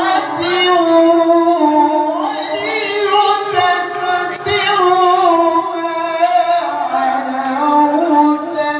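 A male qari chanting Quran recitation (tilawah) into a microphone over a PA system: one long, ornamented melodic phrase in a high register that drops lower about seven seconds in. His voice is hoarse.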